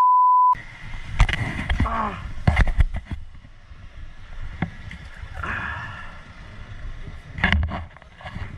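A steady beep tone cuts off about half a second in, followed by irregular knocks, thuds and rustling picked up close to the microphone, with two clusters of sharp knocks about a second in and near the end.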